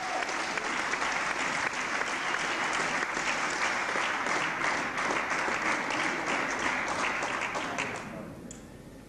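Spectators in a sports hall applauding a won point, a dense steady clapping that dies away near the end.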